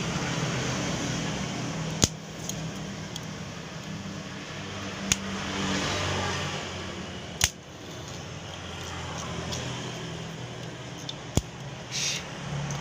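Homemade welding machine for thin plate, humming steadily with a hiss over it, and four sharp clicks at intervals.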